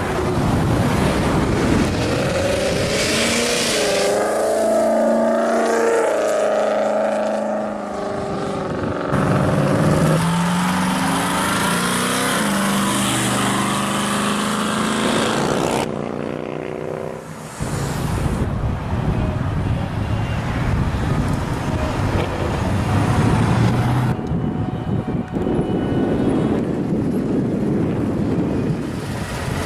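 Several muscle and classic car engines passing one after another, revving and accelerating with rising and falling engine pitch, over road and wind noise. The sound changes abruptly several times as one car gives way to the next.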